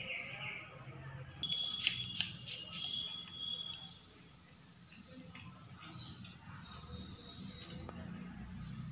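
Cricket chirping in a steady rhythm, about two short high chirps a second. About a second and a half in, a brief high steady tone joins it for a couple of seconds, with a few sharp clicks.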